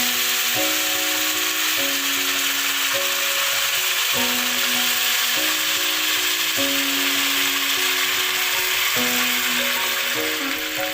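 Background music of held notes changing about every second, over a steady hiss of sizzling as tamarind water cooks in a pan of spices fried in oil.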